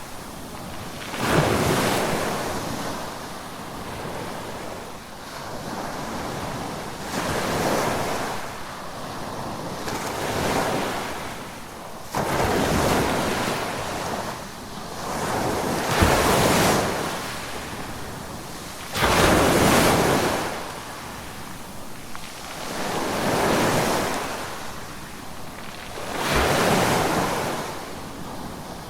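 Ocean waves breaking in a steady series, about one surge every three to four seconds, each swelling up and then washing away.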